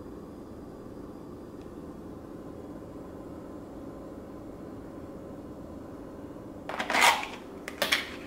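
Steady low kitchen room hum. Near the end comes a loud crinkling scrape as the lid of a plastic food tub is worked open, then a few sharp plastic clicks.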